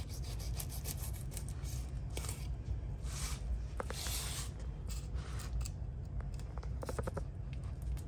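Fillet knife slicing into a whole scaled mangrove snapper on a plastic cutting board: a run of short, irregular scratchy scrapes and rubs as the blade cuts and the fish is handled, over a low steady hum.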